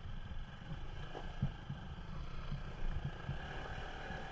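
Bajaj Pulsar NS200's single-cylinder engine running at low revs while the motorcycle crawls over loose gravel, an uneven low throbbing rumble.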